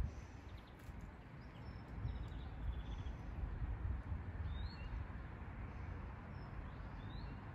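Outdoor background noise with a steady low rumble, and a few short, faint bird chirps in the second half.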